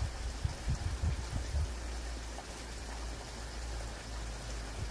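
Wind buffeting the microphone in uneven low gusts over a steady outdoor hiss.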